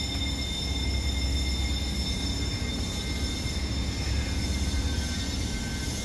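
Steady low rumble with several faint, steady high-pitched tones over it.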